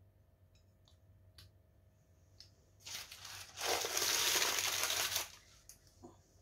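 A brown paper bag being crumpled up by hand, a crackling rustle that starts about three seconds in and lasts about two and a half seconds.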